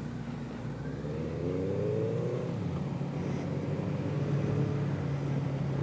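Motorcycle engine pulling away, its note rising in pitch about a second in as it accelerates, then holding a steady drone.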